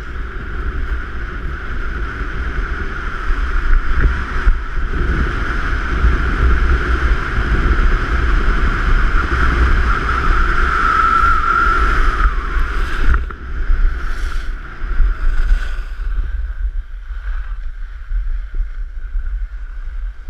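Wind rushing and buffeting over an action camera's microphone, with the hiss of sliding over packed snow, during a fast run down a ski slope. The rush drops off for the last few seconds.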